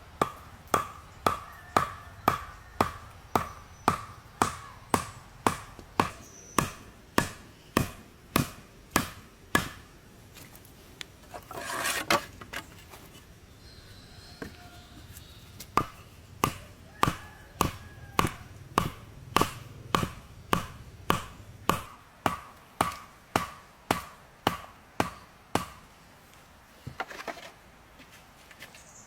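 Rhythmic chopping of wood with an edged tool, about two sharp strikes a second. The strikes pause for a few seconds in the middle, where there is a short rustling burst, then resume.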